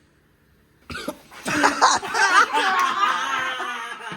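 A person coughing and sputtering from about a second in, after a spoonful of cayenne pepper powder, mixed with laughter.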